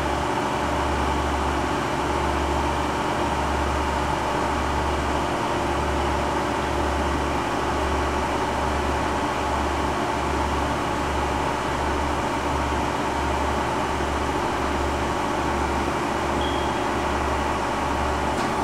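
Chevalier CG-1440A universal cylindrical grinder running its automatic plunge-grinding cycle on fine feed, its 16-inch grinding wheel spinning at speed. A steady machine whir and hum with a low throb that pulses evenly, more quickly in the second half.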